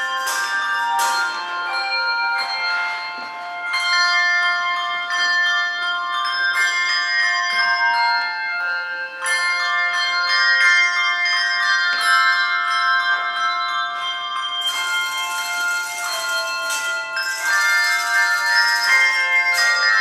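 Handbell choir playing a piece of music: handbells struck one after another and in chords, their clear tones ringing on and overlapping.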